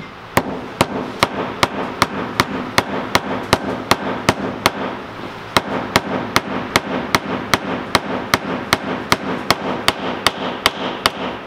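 A hammer tapping on a socket used as a drift, gently driving a bearing into an MG overdrive planet gear. The light strikes come in a steady rhythm of about two to three a second, with a short pause about five seconds in.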